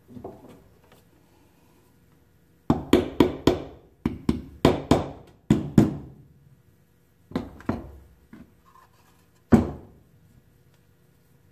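Claw hammer striking wooden boards: about a dozen sharp knocks in quick runs of two to four, then a short pause and a final single knock near the end.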